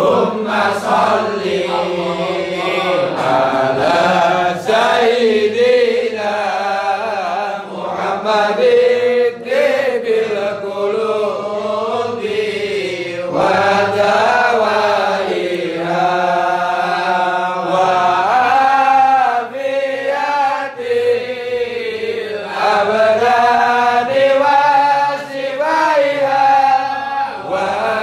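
A voice chanting a slow melody with long, wavering held notes, as background music.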